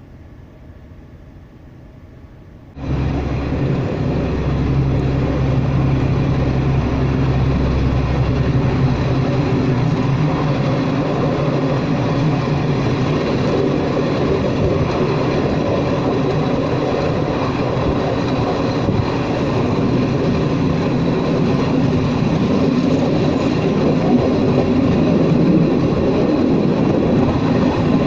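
Diesel passenger train starts up loudly and abruptly about three seconds in, its engine running with a steady low hum, then the train's running noise carries on.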